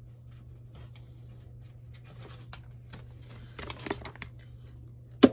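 Photocards and plastic binder sleeves being handled: light rustles and soft taps, then one sharp tap near the end, over a steady low hum.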